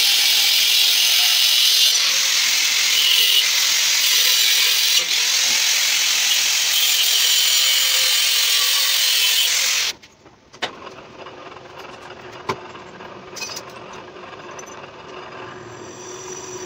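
Handheld angle grinder grinding metal, a loud steady grind that cuts off abruptly about ten seconds in. After it comes a much quieter steady machine hum with a few sharp clicks.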